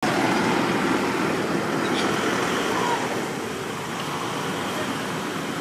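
Steady road traffic noise, a vehicle going by, louder for the first three seconds and then easing off.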